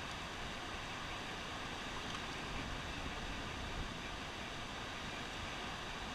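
Steady rush of turbulent dam tailwater, an even noise with no breaks.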